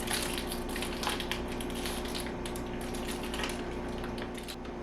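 Scattered clicks, creaks and scrapes of stiff plastic parts being handled and forced together during assembly, over a steady low hum.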